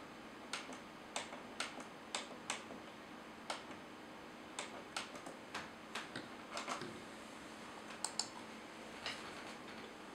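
A run of irregular sharp clicks from a monitor's front-panel buttons, pressed to step through its on-screen menu and raise the green gain during colour calibration. There are about twenty clicks, with a quick pair near the end.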